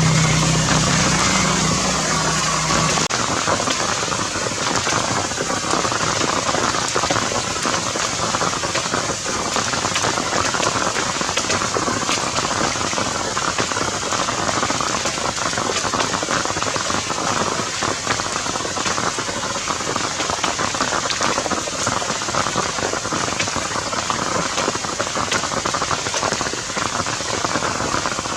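Steady rain falling and pattering on surfaces. A low hum underneath stops about three seconds in.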